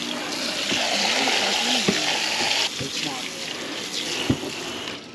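Garden-hose spray nozzle spraying water over plucked chicken carcasses, a steady hiss that is loudest for the first two and a half seconds and then eases. A few light knocks sound through it.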